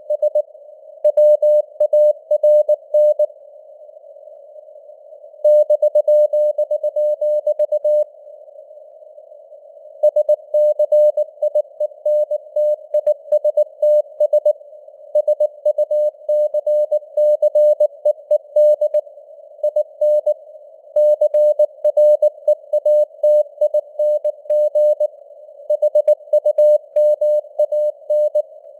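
Morse code at 19 words per minute: a single beep of about 600 Hz keyed on and off in quick dots and dashes, over a faint hiss of simulated radio noise with simulated fading of the signal strength (QSB). The keying breaks off twice for about two seconds, a few seconds in and again around eight seconds in, then runs on.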